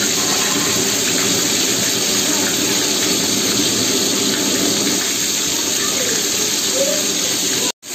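Pieces of katla fish sizzling steadily in hot oil in a wok. The sound cuts out briefly near the end.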